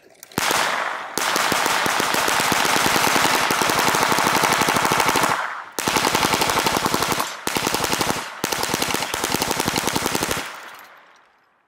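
Hand-cranked Tippmann Ordnance .22LR Gatling gun firing rapid, continuous strings of shots. One long burst of about five seconds is followed by three shorter bursts with brief pauses, and the echo fades away about ten seconds in.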